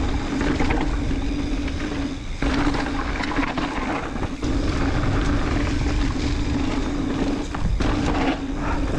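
Mountain bike descending a dirt trail: wind rushing over the microphone and tyres rolling over rough ground, with a few sharp knocks and rattles. A steady buzz runs under it and breaks off briefly twice.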